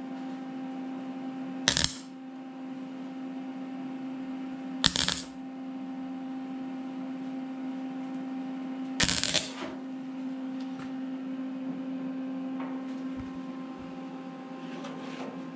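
MIG welder laying tack welds on a sheet-metal patch panel: three short bursts of arc, a few seconds apart, over a steady hum.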